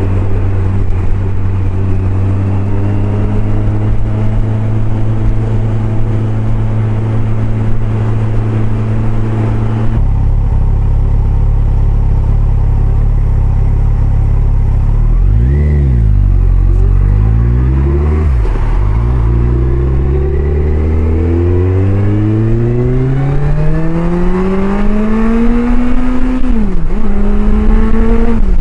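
Kawasaki Concours 14's inline-four engine heard from the bike while riding. It runs steadily at cruising speed with wind noise on the microphone, then eases off. It pulls away with the revs climbing in long rising sweeps, dropping sharply at an upshift near the end.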